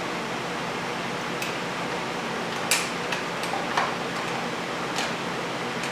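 A few light, irregular metal clicks and taps from hand tools working the bolts of a motorcycle's countershaft sprocket cover, over a steady hiss.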